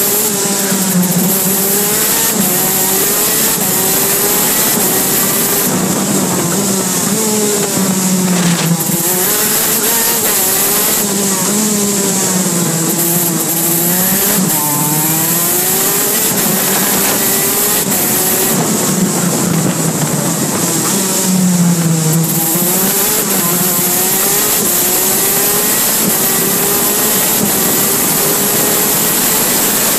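Onboard sound of a KZ2 shifter kart's 125 cc two-stroke engine at racing speed, its pitch rising and falling over and over as it accelerates and slows through the corners.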